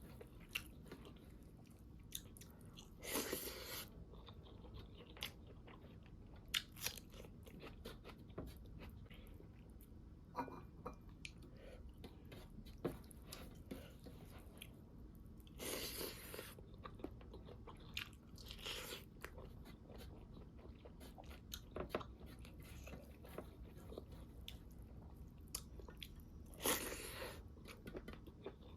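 Close-up chewing and crunching while eating pork with crunchy cartilage bone, a run of small wet clicks broken by a few louder crunches.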